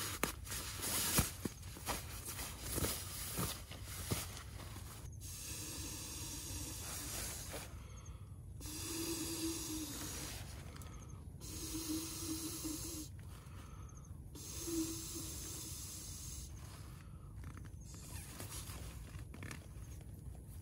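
A person blowing by mouth into the valve of an inflatable sleeping pad: a series of long, breathy blows a few seconds each, with short pauses between them for breath. In the first few seconds, rustling and clicking of the nylon pad and stuff sack being unpacked.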